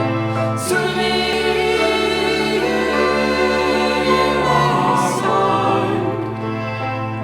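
Music with a choir singing long held chords over a low sustained bass note; the harmony shifts about a second in and again near five seconds.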